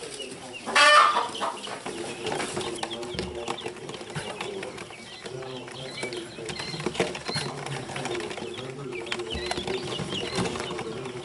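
Coturnix quail chicks peeping over and over with short, high chirps, with one louder, brief sound about a second in.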